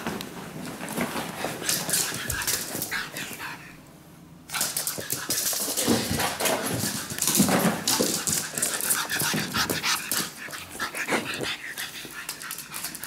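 Pug puppy making playful dog sounds while romping, mixed with many short clicks and scuffles. A brief lull comes about four seconds in, then the play picks up louder again.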